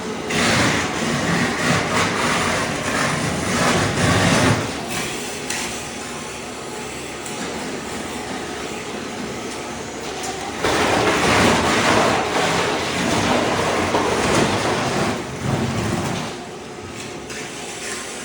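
Ride-on floor scraper running, its blade scraping thin-set mortar off a concrete slab with a rough, gritty grinding noise. The noise gets louder twice: for the first four seconds or so, and again from about ten seconds in until about sixteen.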